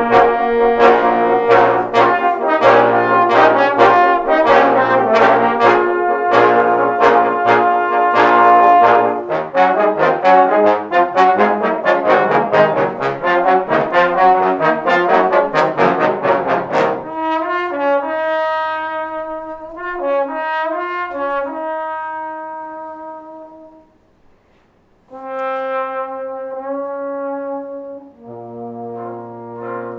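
Trombone octet playing: loud, repeated accented chords, then a faster, busier passage, then softer held chords. The playing stops for about a second near the middle of the second half before soft chords resume.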